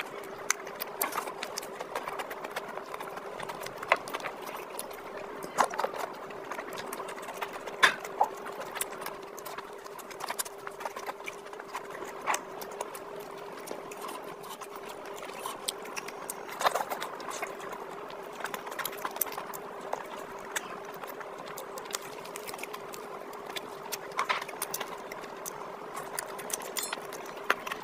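Close-miked eating of chicken curry and rice by hand: wet chewing and mouth and lip smacks, with many irregular sharp clicks, over a steady faint hum.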